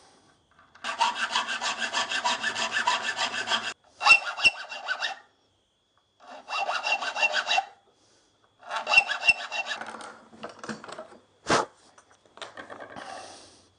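Small triangular file rasping back and forth across the steel head of a bolt, filing out saw cuts to shape a crown-pattern punch: four runs of quick strokes with short pauses between, then a few lighter scrapes. A single sharp knock comes near the end.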